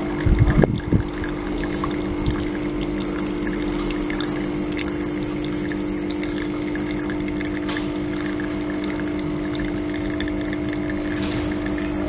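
Espresso machine pump humming steadily while coffee runs into the cup, with a few low thumps about half a second in and one more a little after two seconds.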